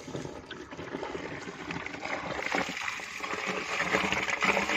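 Water poured from a plastic bucket into a small earthing pit around an earthing electrode, pouring steadily and getting louder toward the end. The pit is being wetted before the earthing chemical goes in.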